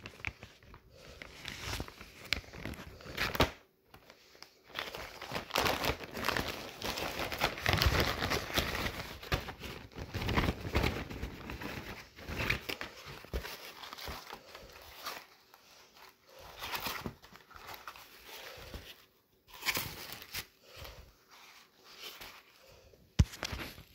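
Plastic packaging bag crinkling and rustling as it is handled and opened, in irregular stretches that are busiest in the middle, with a sharp tap near the end.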